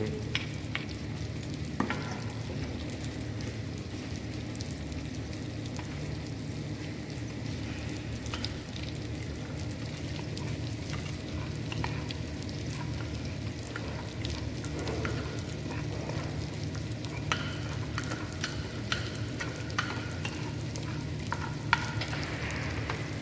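Steady hiss and rumble of a pot of water with chopped tomatoes heating on a stovetop, close to the boil. Scattered light clicks and taps come in the second half as crushed garlic and ginger go into the pot.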